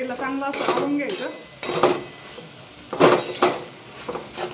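Spatula scraping and knocking against a metal kadhai while stirring and sautéing spring-onion greens with chana dal, a stroke about every second.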